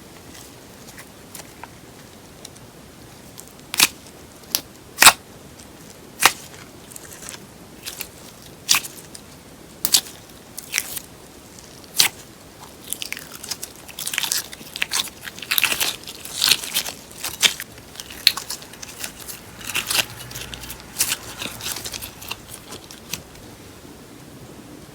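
Paper clay slime being worked by hand, giving sharp crisp snaps and crunches: a few single cracks at first, then denser runs of crackling in the second half.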